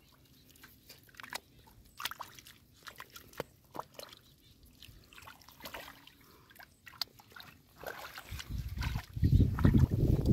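Hands groping in shallow muddy water, making scattered small splashes and trickles. For the last two seconds a much louder low sloshing rumble takes over.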